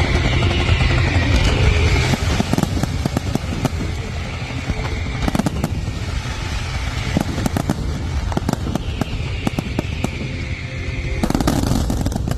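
Fireworks going off: dense crackling and rapid pops, with a whistle at the start and another about nine seconds in, and a louder cluster of bangs near the end.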